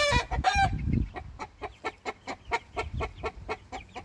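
Chickens clucking: a rapid, even run of short clucks, about five a second, with two louder, longer calls right at the start.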